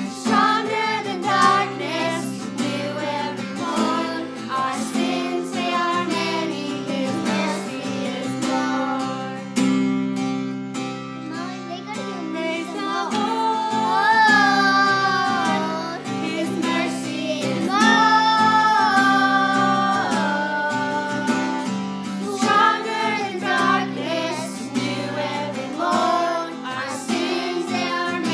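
A woman and young children singing a song together, accompanied by a strummed acoustic guitar.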